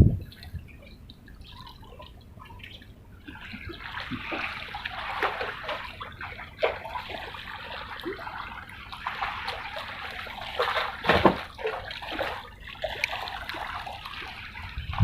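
Water sloshing and trickling, with scattered small clicks and a louder knock about eleven seconds in.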